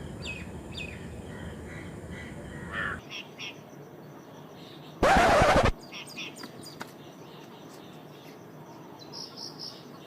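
Small birds chirping and calling in short bursts, with a loud harsh burst of noise lasting under a second about five seconds in.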